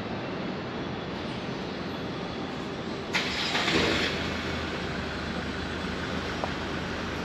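Steady city street traffic noise. About three seconds in, a sudden louder rush of noise lasts about a second, followed by a low hum.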